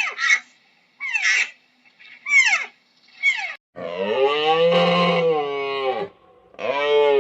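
Animal calls: a run of short cries that each fall sharply in pitch, then one long call of about two seconds that rises and falls, and a shorter one near the end.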